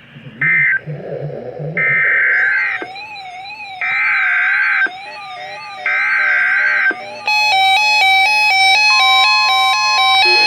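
Emergency Alert System data bursts: a short burst, then three screeching digital bursts about a second long, two seconds apart. A warbling siren-like tone runs under them from about two seconds in. From about seven seconds in, synthesized music with stepped electronic tones takes over.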